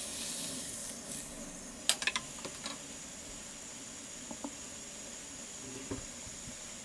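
Thin pancake batter sizzling in a hot non-stick frying pan just after it is poured in. The hiss is louder for the first second, then settles to a steady sizzle. A few light clicks come about two seconds in.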